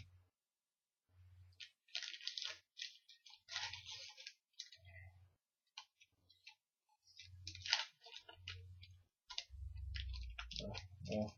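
A trading-card foil pack being torn open and cards handled: short bursts of crinkling wrapper with scattered sharp clicks, and dull low thumps from handling on the desk, heaviest near the end.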